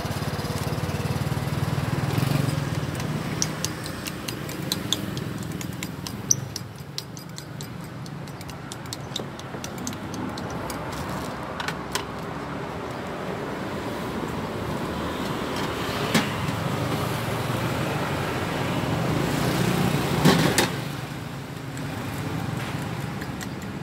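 Street traffic passing: a motor vehicle's low rumble swells about two seconds in and again, loudest, about twenty seconds in. Between these, scattered light clinks of utensils against glass jars and steel cups.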